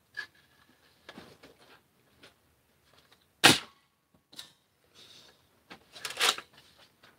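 Caliburn spring-powered foam-dart blaster being handled with a few light clicks, then fired about three and a half seconds in with one sharp crack. A second, longer clatter follows about six seconds in.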